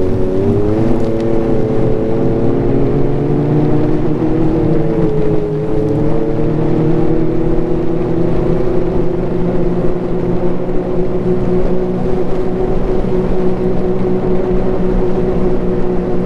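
Ski-Doo Renegade Enduro snowmobile's 900 ACE Turbo three-cylinder four-stroke engine running steadily while riding along a trail. Its pitch dips briefly about half a second in and again around five seconds in, then holds steady.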